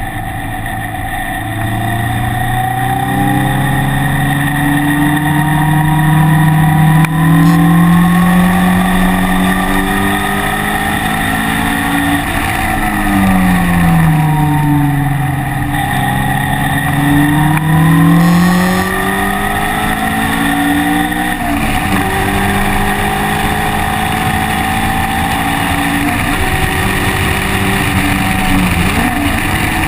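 Engine of a vehicle lapping a track, heard onboard: the revs climb steadily for about twelve seconds, fall away, climb again, then drop suddenly about two-thirds of the way through and hold fairly steady, over a constant hiss of wind and tyre noise.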